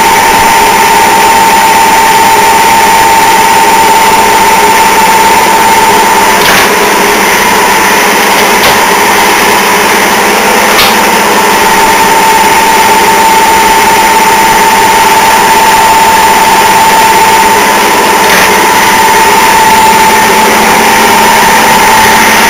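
Turret lathe running under power from its 2 hp Brook electric motor: a loud, steady high whine over mechanical running noise, with a few sharp clicks.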